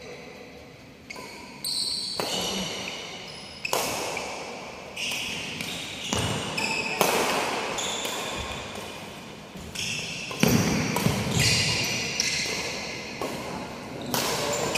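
Badminton doubles rally: a string of sharp racket hits on the shuttlecock, each echoing off the walls of a large hall, mixed with sneakers squeaking on the wooden court floor.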